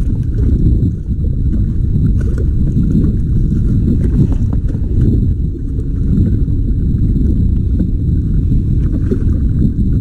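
Wind buffeting the microphone over a small boat rocking on choppy sea, a loud steady low rumble with water slapping the hull.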